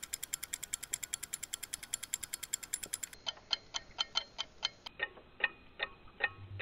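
Rapid, even ticking like a clock or timer, about eight ticks a second, as a sound effect in an animated intro. About three seconds in it slows to about five ticks a second and sounds more muffled, then muffled again a little later. A low bass note comes in at the very end.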